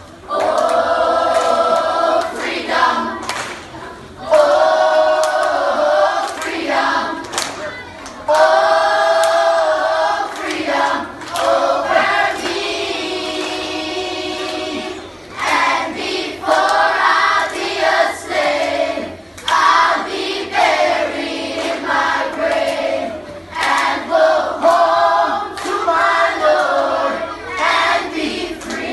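Children's school choir singing together, phrase after phrase with short breaks between them.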